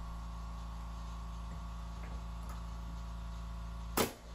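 Pneumatic finish trim nailer firing once about four seconds in, a single sharp crack as it drives a 2.5-inch nail through the desktop into the cleat and stud. Under it runs a steady mechanical hum, with a few faint ticks.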